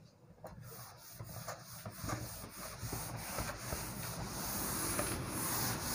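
Cloth rubbing across a whiteboard, wiping off marker writing in quick back-and-forth strokes. The scrubbing starts faint about half a second in and grows steadily louder.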